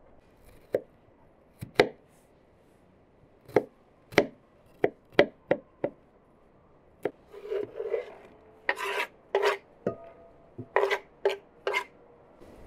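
Kitchen knife chopping garlic on a wooden cutting board: about ten irregular sharp knocks, then near the end a run of rougher scraping strokes with a brief metallic ring as the chopped onion is scraped from the board into an enamel pan.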